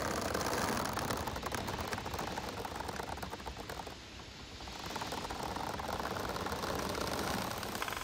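Giant bamboo in the wind: leaves rustling and the tall culms knocking and rubbing against each other in a dense run of small clicks. The sound eases for about a second near the middle, then picks up again.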